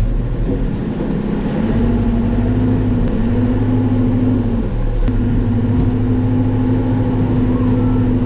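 Excavator's diesel engine running steadily under working load, with a wavering whine over the low hum that holds steadier from about halfway through, as the machine back-drags the ground smooth.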